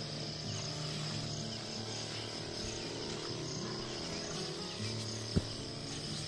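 Steady high-pitched insect chirring over soft background music, with a single sharp click about five seconds in.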